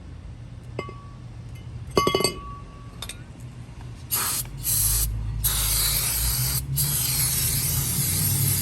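Aerosol spray can hissing in several bursts, the last about two seconds long, as a new brake caliper is sprayed clean of its cosmoline coating. Before the spraying, two short metallic clinks that ring briefly.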